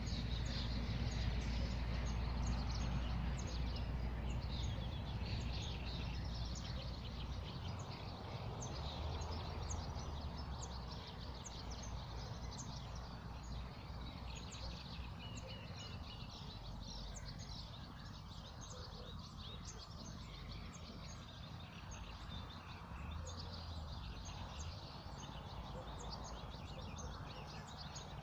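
Small birds chirping and singing, many short quick calls overlapping, over a steady low rumble that eases off after the first several seconds.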